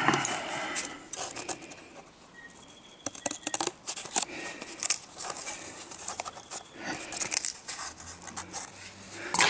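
Scissors snipping through a cardboard template: several runs of short, sharp cuts with pauses between them.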